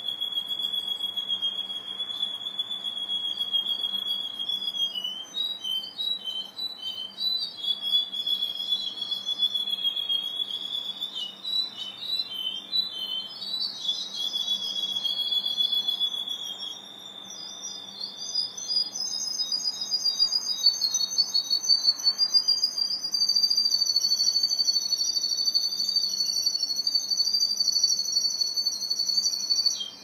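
Canary singing continuously: long rolling trills held on one pitch for many seconds, which step up to a higher, louder trill about two-thirds of the way through.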